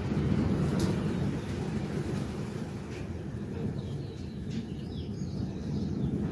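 Outdoor ambience: a steady low rumble with a few faint bird chirps in the second half.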